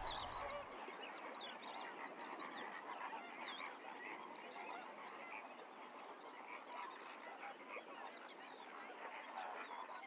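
A dense chorus of many birds calling at once: short chirps and quick up-and-down whistles over a steady crowd of lower calls.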